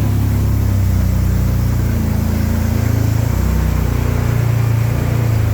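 1938 SS Jaguar 3½ Litre's straight-six engine running at low revs while the car is manoeuvred, its engine speed shifting a couple of times.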